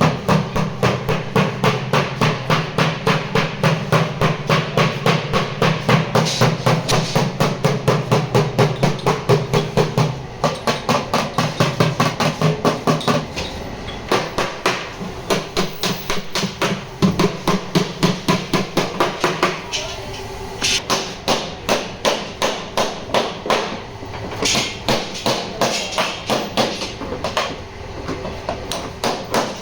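Panel-beating: a hammer striking the sheet-metal front body of a Suzuki Alto Lapin in rapid, regular blows, about four a second. From about two-thirds of the way in, the blows come in shorter runs with brief pauses.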